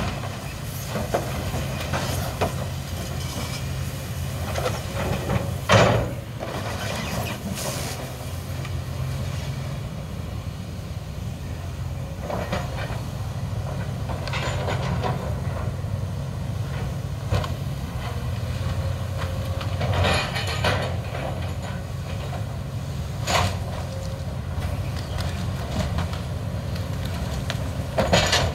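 Hydraulic excavator's diesel engine running steadily under load, with several crashes and clanks of brick and timber debris as the building is torn down, the loudest about six seconds in.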